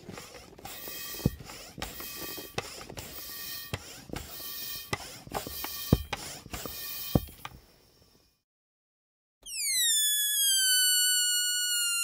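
Rubber balloon sounds: for about eight seconds a rustling, squeaky rubber noise with sharp clicks, then, after a brief pause, a loud high squeal of air escaping through a balloon's stretched neck, gliding steadily down in pitch as it deflates.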